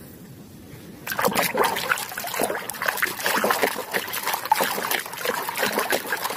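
A hand swishing a toy car through a plastic basin of muddy water, with splashing and sloshing that starts about a second in and keeps going.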